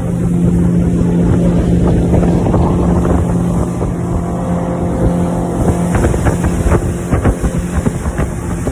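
Motorboat engine running steadily under way, with wind buffeting the microphone. A run of short knocks comes in during the last few seconds.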